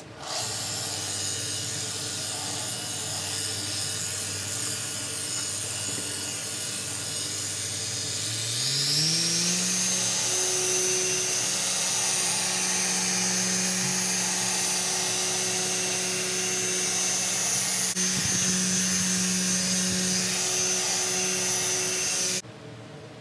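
Small corded electric mini polisher with an orange foam pad running against a plastic headlight lens. Its whine steps up in pitch about eight or nine seconds in as the speed is raised, holds steady, then cuts off suddenly near the end.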